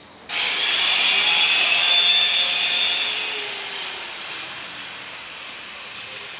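A woodworking power tool starts suddenly with a high whine and runs loud for about three seconds. It then dies away slowly with a falling pitch, as the tool winds down.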